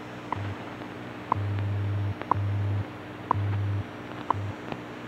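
WWV time-signal broadcast received on a shortwave radio: a short tick once a second, and starting on each tick a low hum from the station's 100 Hz time code, some pulses short and some long, over steady radio hiss.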